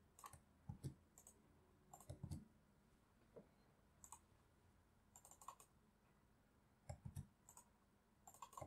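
Quiet computer mouse and keyboard clicks in small scattered groups of a few clicks each.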